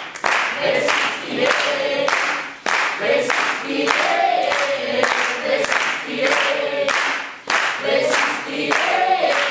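A small group of amateur voices singing together in unison without instruments, over a steady percussive beat about twice a second. The singing dips briefly twice, between phrases.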